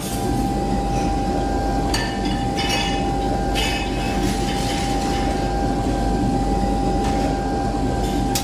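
Steady low mechanical rumble with a constant high tone held above it, and a few brief hisses about two to four seconds in.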